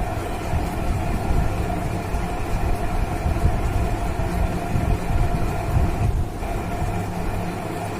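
A steady low mechanical rumble with a constant mid-pitched hum, which drops away briefly about six seconds in.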